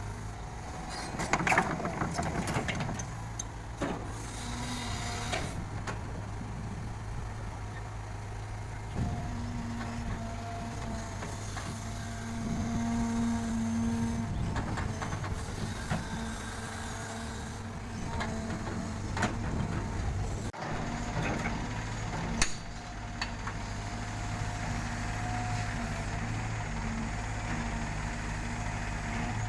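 Diesel engine of heavy construction machinery running steadily, with a few sharp knocks and clanks, the loudest about a second and a half in.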